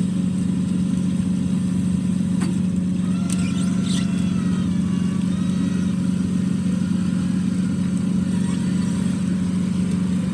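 Boat engine running at a steady, constant drone.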